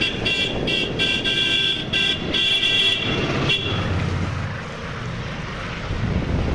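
A horn sounds several honks of varying length over the first three and a half seconds. After that the low rumble of a freight train of tank wagons rolling across the bridge takes over.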